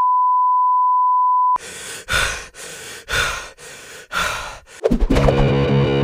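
A steady colour-bar test tone, one unbroken beep that cuts off suddenly about a second and a half in. Then a few hissing swells about once a second, and near the end distorted electric guitar music starts.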